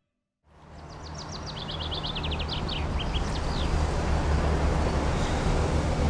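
After a brief silence, city street ambience fades in: a steady low traffic rumble with a hum. Over the first few seconds a small bird sings a quick run of chirps, about eight a second, that step down in pitch.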